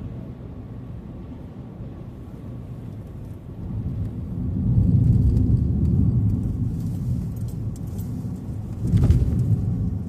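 Car driving along the road: a steady low rumble of engine and tyres, swelling louder about four seconds in and again briefly near the end.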